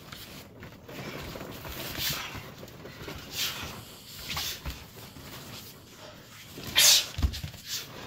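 Two fighters grappling in a clinch against a chain-link cage fence: hard breathing and scuffling of bodies and feet, with a few louder noisy bursts, the loudest about seven seconds in.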